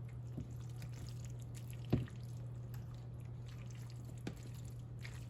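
Spaghetti being stirred through sauce in a pan: faint wet squelching with light taps of the utensil, and one sharper knock about two seconds in.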